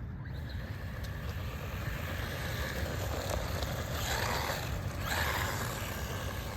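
Electric RC buggy driving over rough ground at full throttle: a rushing hiss that builds and is loudest about four seconds in. Steady wind rumble on the microphone underneath.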